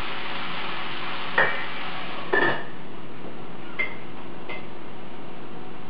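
A metal utensil clinks against a plate and pan a few times, sharp short clicks, over a steady sizzling hiss from vegetables frying in the pan.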